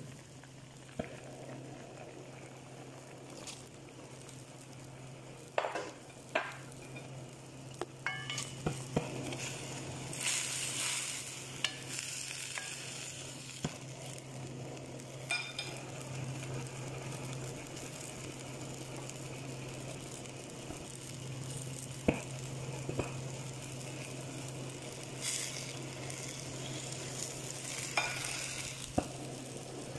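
Chicken pieces cooking in a stainless steel pot with cut potatoes and carrots being added and stirred: sizzling and bubbling, scattered clinks and knocks of a utensil against the pot, and a steady low hum. Two spells of louder sizzling come about ten seconds in and again near the end.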